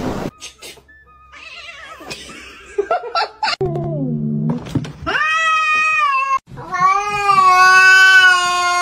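A long drawn-out wailing call in two held notes, the second lower and sustained for about three seconds, after a shorter call that falls in pitch and a few soft knocks.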